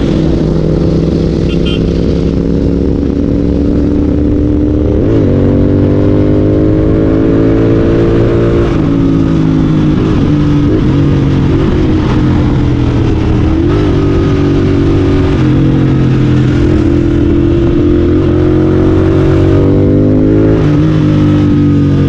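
Royal Enfield Continental GT 650's parallel-twin engine through a Red Rooster aftermarket exhaust, ridden at fairly steady revs. There is a quick dip and recovery in engine speed about five seconds in, and a short rise and fall near the end.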